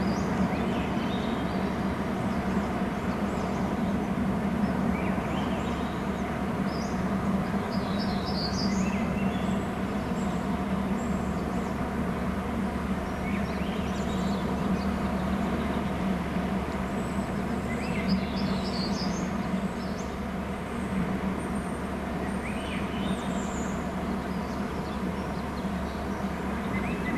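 Steady low hum and noise from an outdoor nest camera's microphone, with faint, high bird chirps every few seconds.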